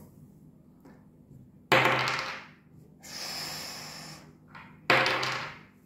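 A dice thrown onto a wooden table: a sudden clatter about two seconds in that dies away over about a second. A softer rustle follows, then a second, similar sudden sound near the end.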